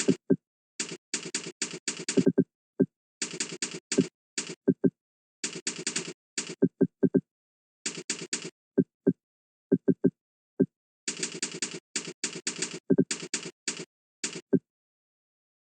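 Computer keyboard keystrokes in quick runs of several clicks, separated by short pauses, with single short falling blips scattered between the runs.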